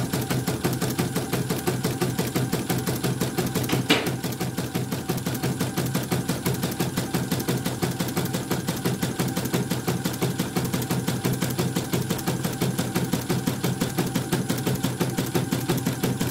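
Elnoss computerised embroidery machine stitching at speed during a test run: a rapid, even clatter of needle strokes as the hoop shifts the fabric, with one sharper click about four seconds in.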